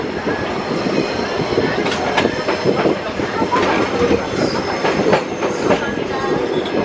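A slow-moving tourist train's steel wheels clattering over rail joints and a set of points, with many irregular clicks and knocks and a faint wheel squeal over a steady running rumble.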